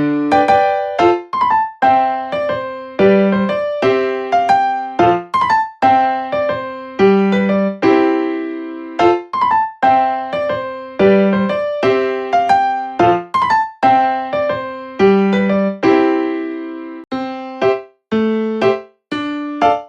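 Background music played on a solo piano-like keyboard: a simple melody of struck notes that ring and fade, with lower bass notes under it.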